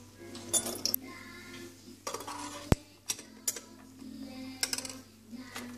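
Scattered clicks and light clinks of plastic and metal parts and tools being handled inside a disassembled Krups espresso machine during repair. One sharp, loud click comes a little under three seconds in.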